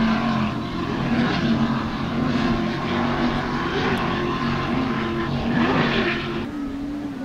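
Offshore racing powerboat's engines running at speed as it passes, a steady drone under a rushing hiss of water and wind. The pitch rises and falls briefly about five and a half seconds in, and the hiss drops away about a second before the end.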